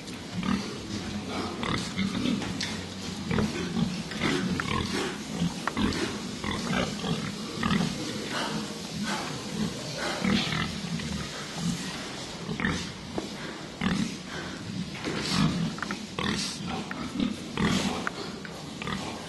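Pigs in a pig house grunting and moving about: a steady run of short, irregular grunts, with sharper noises now and then.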